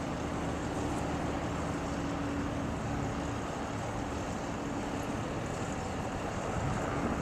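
Steady engine drone with a low hum and an even rushing noise, unchanging throughout.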